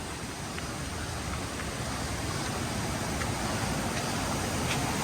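Steady rush of water from a waterfall, growing gradually louder.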